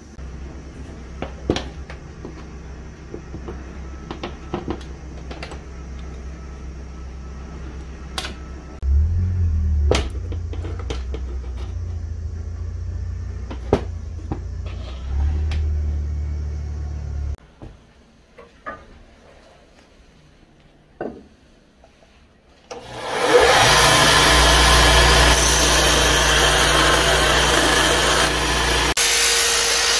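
Scattered light clicks and taps of wooden handle scales, pins and clamps being handled over a low steady hum. About two-thirds of the way in, a belt sander starts up and runs loudly and steadily, grinding the wooden handle scales glued onto a steel knife tang.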